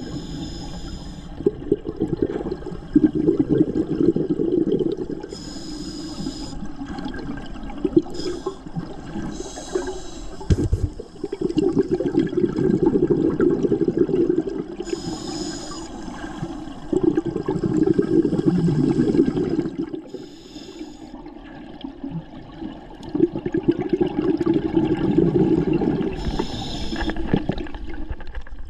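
Scuba diver breathing through a regulator underwater: a short hissing inhalation, then several seconds of rushing, gurgling exhaled bubbles, repeated four or five times.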